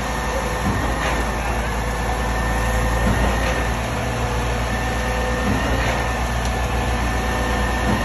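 KCP 24ZX truck-mounted concrete boom pump running under load, with a steady engine and hydraulic drone and faint knocks every second or two.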